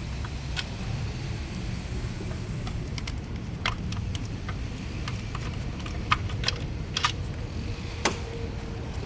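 Scattered sharp metallic clinks and clicks of hand tools and loose bolts while the upper intake plenum bolts are taken off a Nissan Pathfinder's V6, over a steady low rumble.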